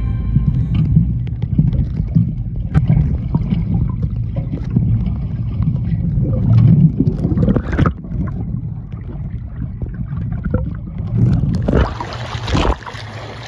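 Water heard from underwater: a muffled low rumble with scattered bubble clicks and knocks. Near the end it turns into a loud splashing rush as the recording breaks the surface.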